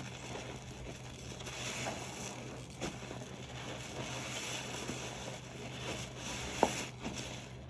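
Soapy sponge being squeezed and worked with dish soap, wet squishing and crackling of the lather in slow repeated swells, with a brief sharp click near the end.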